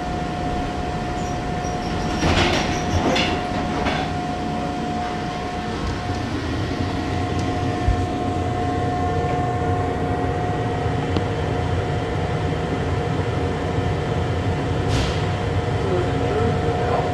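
Airport people-mover tram pulling away from the station and running through a tunnel, heard from inside the car: steady running noise with a whine. There are a few sharp knocks about two to four seconds in and one more near the end.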